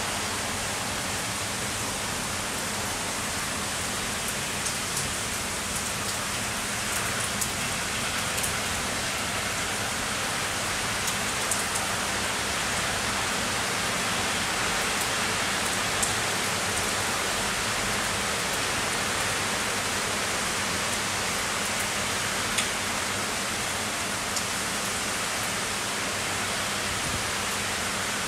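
Heavy rain falling steadily, an even hiss, with occasional sharp drop impacts close by.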